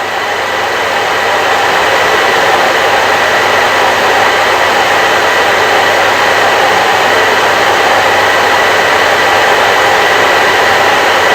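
Hair dryer running steadily: an even rush of blown air with a faint, steady whine from its motor, swelling a little over the first couple of seconds.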